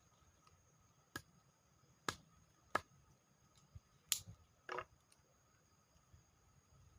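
A handful of sharp clicks or taps, spread over about three seconds, followed by a short crackling rustle, against a quiet background.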